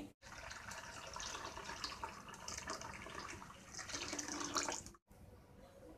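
Water poured from a glass into a glass bowl of churned curd, thinning it into buttermilk: a steady, faint pour that stops about five seconds in.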